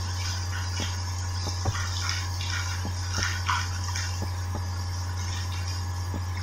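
Volcanic eruption at night: scattered sharp crackles and pops, about a dozen across the few seconds, over a steady low hum and hiss.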